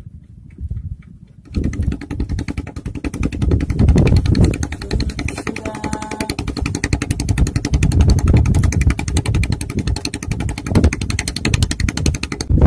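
A motor engine running loudly with a fast, even pulsing, starting abruptly about a second and a half in; a short pitched tone sounds briefly around the middle.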